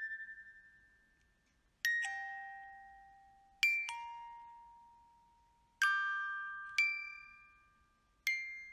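Slow background music of sparse bell-like struck notes, about one every one to two seconds, each ringing out and fading before the next.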